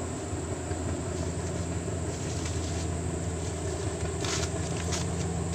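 A steady low rumble, with a few short crunches of footsteps on dry leaf litter about four seconds in.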